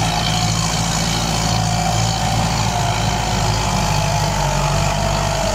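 Farm tractor's diesel engine running steadily under load as it pulls a disc harrow through turned soil.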